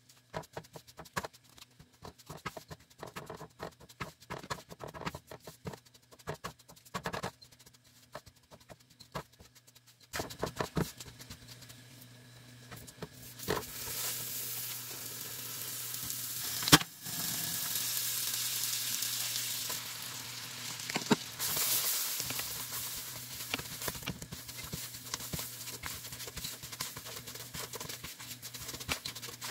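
A silicone spatula scraping and tapping through dry flour in a nonstick pan, in scattered small clicks. About ten seconds in a steadier sound begins, and a few seconds later butter sizzles with a high hiss as it melts into the hot toasted flour, with one sharp click partway through.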